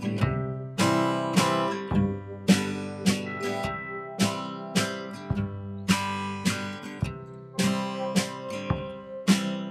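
Background music: an acoustic guitar strumming chords, each strum ringing out and fading, roughly one or two strums a second.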